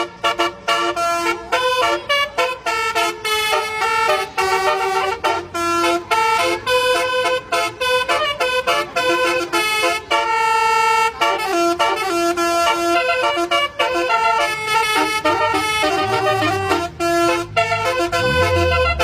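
Bus telolet horn, a Basuri-type multi-tone air horn, playing a quick tune of short tooting notes at several pitches in a row. A low hum that rises and falls sits under it from about three quarters of the way through.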